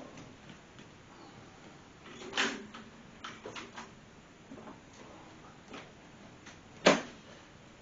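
Kitchen utensil handling: scattered knocks and clinks of cutlery, with a louder knock a couple of seconds in and a sharp, loud clink near the end.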